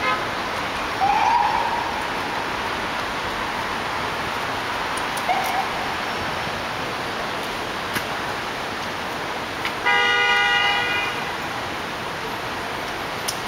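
Steady city street noise, with a vehicle horn sounding once, one steady honk of about a second, about ten seconds in. Two short squeals come earlier, one about a second in and one around five seconds.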